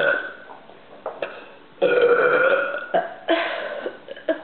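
A person belching on purpose: a long, drawn-out belch about two seconds in, followed by a shorter one.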